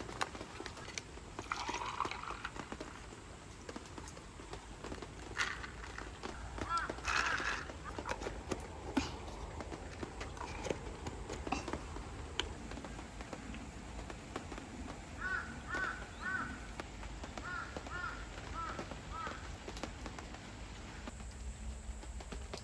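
Outdoor ambience with scattered light clicks and knocks, and a bird calling in two short series of repeated chirps in the second half.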